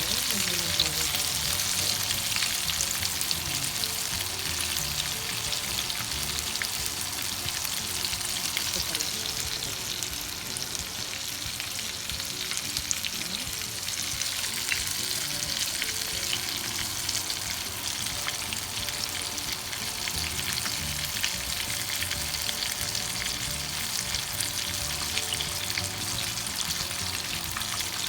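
Pieces of chicken karaage frying in hot oil: a steady, dense sizzle full of small crackles and pops, the chicken nearly cooked through.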